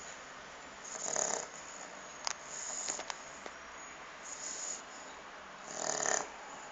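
Shar-pei dog snoring in its sleep, with a pig-like snore on the breaths about every one and a half seconds; the loudest come about a second in and near the end, with a few small clicks between.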